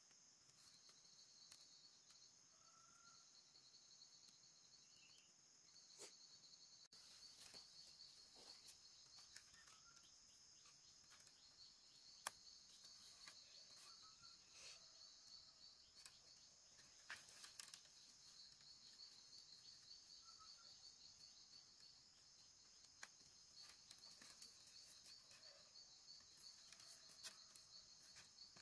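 Faint, steady chirring of insects in high, pulsing trills, with scattered light clicks and taps through it; the sharpest click comes about twelve seconds in.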